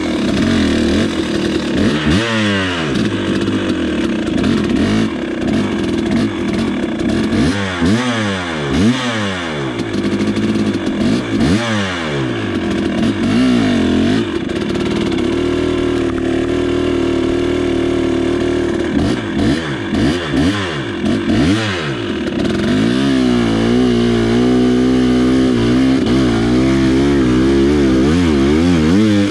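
2019 KTM 300 XC two-stroke single-cylinder engine revving up and down in repeated bursts during a second-gear attempt at a steep climb in loose, deep dirt, then held at steady high revs for the last several seconds.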